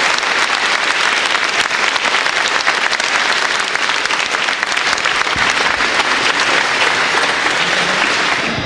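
A large group of people applauding, hand-clapping steadily without a break.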